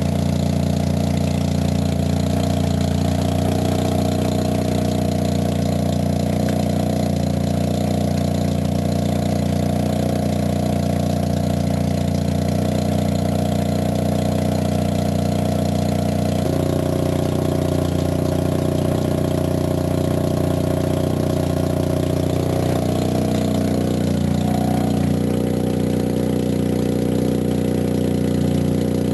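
Car engine running steadily in gear, spinning the bare brake rotor and hub of a raised wheel. The tone changes abruptly about sixteen seconds in.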